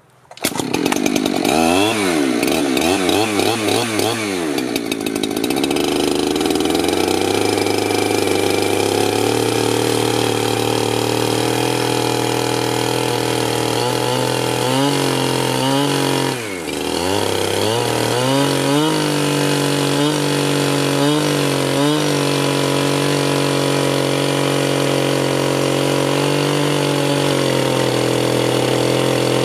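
Two-stroke chainsaw running at high revs, used to brush and sand down a wooden plant holder. Its pitch wavers for the first few seconds, then holds steady, with a short drop in revs about halfway through and a few quick dips after it.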